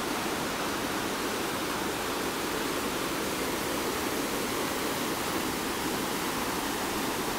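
Whitewater rapids of a forest river rushing steadily over and between boulders. The river is running high, about two feet above its usual level.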